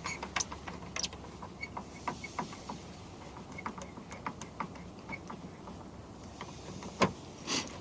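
A T20 Torx wrench turning a screw inside a car door: light, irregular metallic clicks and ticks, with two louder knocks near the end.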